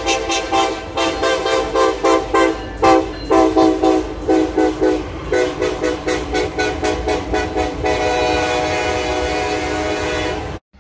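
Diesel locomotive's multi-chime air horn sounded as a chord in rapid short toots, about four a second with a few longer notes between, then one long steady blast from about eight seconds in that cuts off suddenly.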